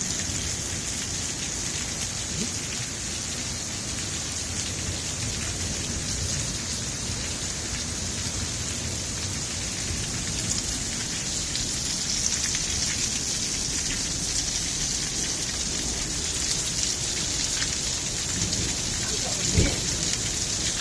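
Heavy rain pouring down steadily, with water running off the roof past an overflowing downspout. A brief thump comes near the end.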